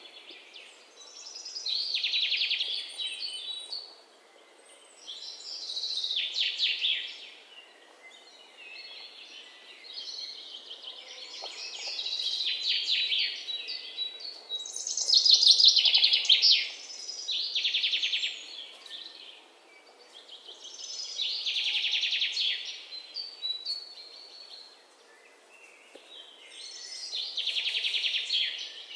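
Songbirds chirping: a high, rapid trilled phrase repeated every few seconds, the loudest near the middle, over a faint steady hiss.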